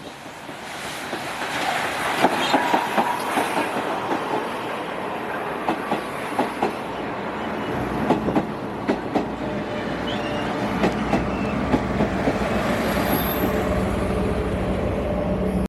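A train running past, its noise building over the first couple of seconds, with wheels clicking over rail joints and a faint steady tone from the running gear in the later part.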